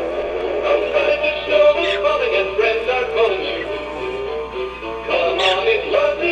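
Animated Christmas plush figure singing a Christmas song through its small built-in speaker: an electronic-sounding voice over a simple tune.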